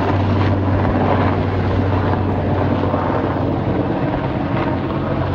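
Military helicopter flying low overhead: a loud, steady drone of rotor and turbine.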